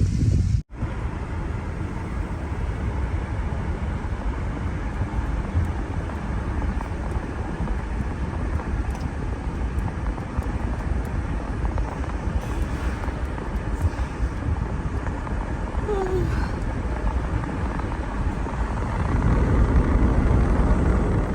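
Steady low rumble and travel noise of a moving vehicle, with a brief drop-out about half a second in and a louder stretch near the end.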